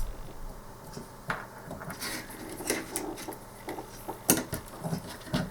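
Scattered light clicks and taps of small tools and parts being handled while a wire is soldered to a connector pin, with one sharper tap about four seconds in.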